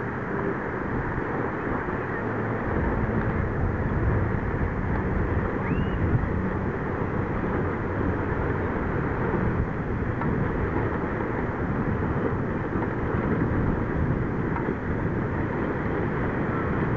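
Steady wind noise on the microphone, mixed with the wash of small waves breaking on a sandy shore.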